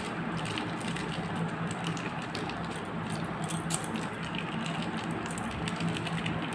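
Faint light ticks and rustles of a paper food-colour sachet being shaken and tapped over a bowl of milk, over a steady low hum and hiss.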